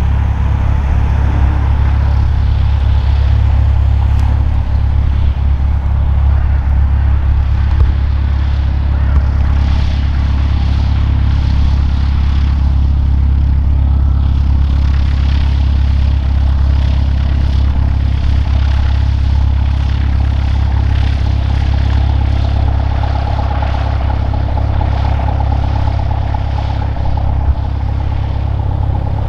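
Cessna 172R Skyhawk's single piston engine and propeller running at low power while taxiing: a steady low drone, with the propeller note growing stronger near the end as the aircraft passes close.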